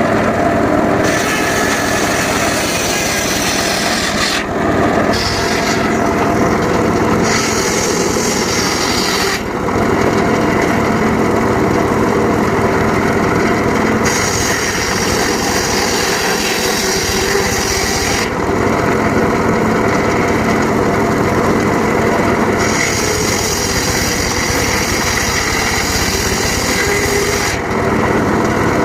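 Homemade circular saw running steadily while slicing teak wood. A harsher, higher cutting noise comes and goes in four stretches of a few seconds each as the blade works through the wood.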